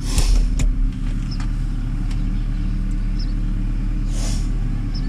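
A steady low mechanical hum, with a few sharp clicks in the first second and a brief scraping rustle about four seconds in.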